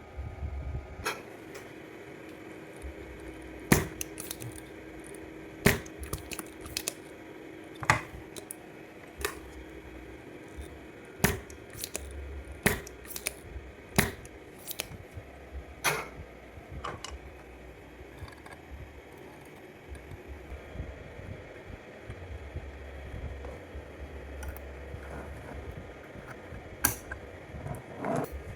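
Scattered sharp clicks and light knocks of small hard objects being handled, about twenty spread irregularly, over a steady low hum. A faint steady tone runs under them for roughly the first ten seconds.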